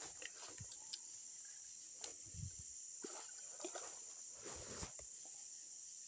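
Steady high chirring of night insects, crickets and the like, with scattered short clicks and brief rustles over it.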